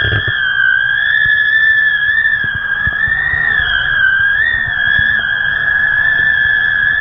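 Wind whistling in the kite's lines and bridle: one steady high whistle that wavers slightly in pitch, over low wind buffeting.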